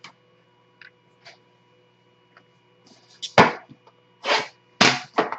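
Sealed trading-card box being opened by hand: a few faint clicks, then from about three seconds in several loud rasping scrapes of cardboard and wrapping being torn.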